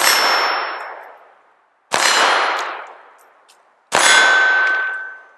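Three .22 LR shots from a Walther P22 pistol, about two seconds apart, each followed at once by the ringing clang of a hit steel target that dies away over a second or so.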